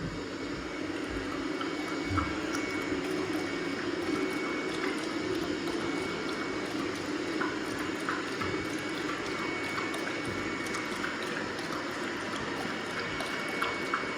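Robot vacuum running steadily: a constant motor whir with a thin high whine and small scattered ticks and clicks.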